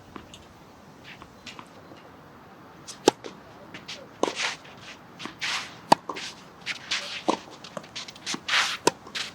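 Tennis rally: sharp racket-on-ball strikes a few seconds apart, the two loudest about 3 and 6 seconds in, with footsteps and shoes scuffing on the court between them.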